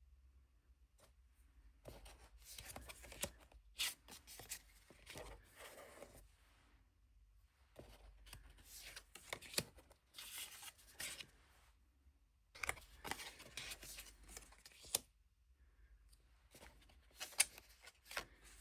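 A deck of thick, cardboardy cardstock tarot cards being handled and flipped through by hand: dry sliding and rustling in several short spells with quiet pauses between.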